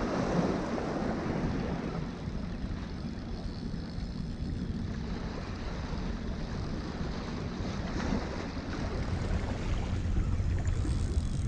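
Waves washing and splashing against the jetty rocks, with wind buffeting the microphone.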